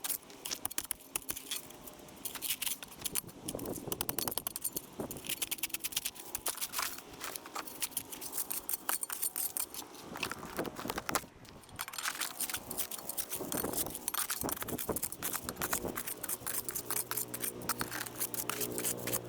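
Digging in gravelly soil: a dense run of scraping, crunching and clicking from the tool and stones, with short pauses. Background music shows faintly near the end.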